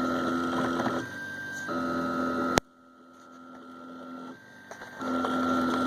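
Home-built 3D printer's stepper motors whining through print moves, the pitch changing with each move, as it lays down the start of a 10 mm nut. A sharp click comes about two and a half seconds in, after which the motors go quieter for a couple of seconds before the whine returns.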